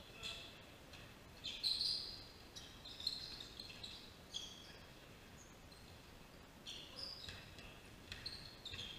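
Basketball shoes squeaking on a wooden gym floor as players run and cut: short, high-pitched squeaks coming in irregular clusters, loudest about two seconds in.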